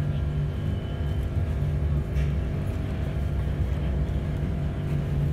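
Bus engine running steadily while the bus drives, heard from inside the cabin as an even low hum.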